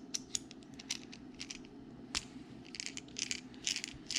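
Faint handling of a small knife-maintenance tool that holds screwdriver bits: a string of light clicks and ticks with brief rustling near the end.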